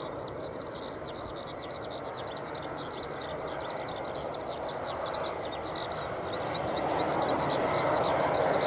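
Small birds chirping rapidly and continuously. Under them, the jet-engine noise of a Boeing 787-8 on landing approach grows steadily louder through the second half.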